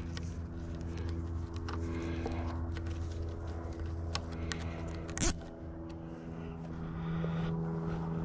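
A steady low engine hum, with scattered light clicks and knocks and one sharp, loud hit about five seconds in.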